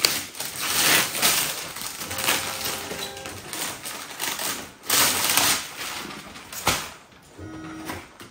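Crinkly gift wrapping being handled and rustled open in irregular bursts, with a few sharper clicks.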